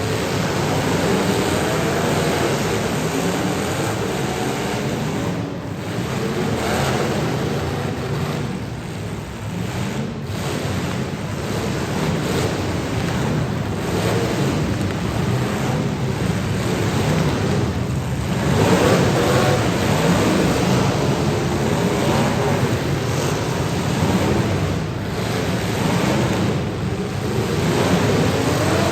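Demolition derby cars' engines running and revving, their pitch rising and falling over a steady noisy roar.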